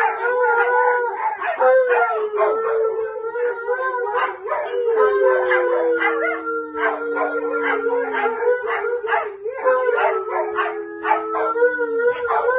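Dogs howling together, a Siberian husky and an Alaskan malamute in a howl-off: long overlapping howls, two of which slide down in pitch around the middle and again near the end, with short yips mixed in.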